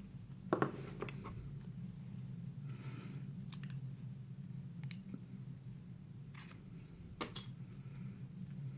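Scattered light clicks and ticks of small metal lock parts (pins and picking tools) being handled, about ten in all, over a steady low hum.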